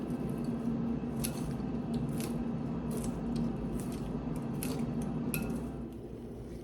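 Light clicks and clinks of kitchen utensils and dishes being handled, a handful of separate sharp ticks over a steady low electrical hum.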